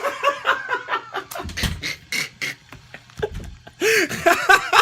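A man laughing in short, breathy, choppy bursts, with a couple of low thuds about a second and a half and three seconds in.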